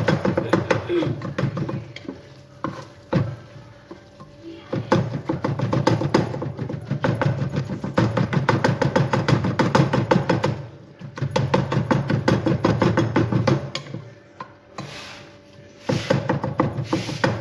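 Wooden spatula knocking and scraping rapidly against a saucepan while mashing tomatoes frying in oil. It comes in bursts of a few seconds with short pauses between.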